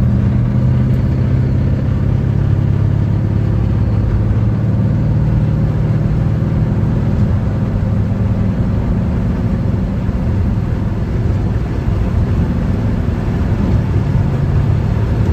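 350 Chevy V8 of a 1954 Chevrolet 3100 pickup running at a steady cruise, heard from inside the cab: a steady low engine drone with road noise.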